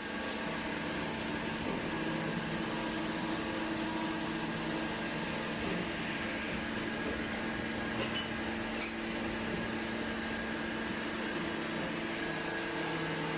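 YJ-150CNC automatic circular pipe-cutting saw running: a steady machine hum with several constant tones over an even mechanical noise.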